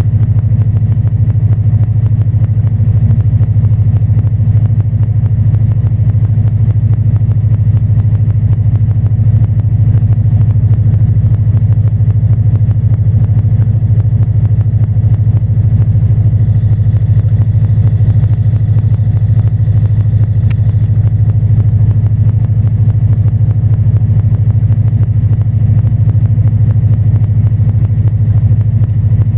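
Engine of an Independent Shipwrights IS25 pocket trawler running steadily under way at low speed: a loud, even, low hum that does not change.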